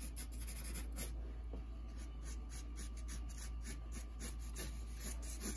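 Sharpie marker sketching on drawing paper: a run of quick, short scratchy strokes as the loose lines of a mermaid's tail fin go down, over a steady low hum.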